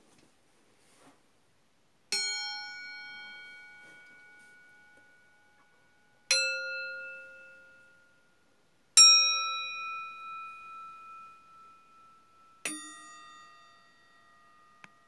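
Stainless steel bowls struck four times, each strike ringing like a bell and dying away slowly over a few seconds, the pitch differing from one strike to the next.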